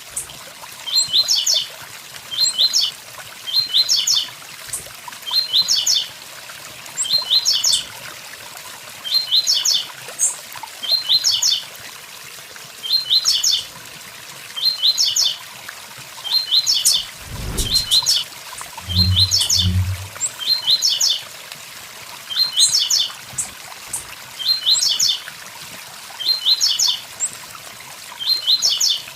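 Blue-black grassquit (tiziu) singing its 'tui tui zel zel' phrase over and over, a quick cluster of high notes about once a second, over a faint steady waterfall rush. A brief low thump and two short low hums come about two-thirds of the way through.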